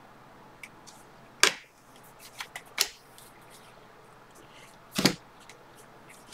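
A stack of stiff Bowman Chrome baseball trading cards being thumbed through and handled, giving scattered sharp card clicks and flicks. The three loudest come about one and a half, three and five seconds in.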